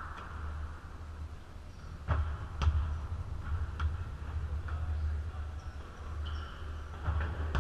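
Basketball bouncing on a gym court floor: a few sharp, irregularly spaced knocks starting about two seconds in, over a steady low rumble.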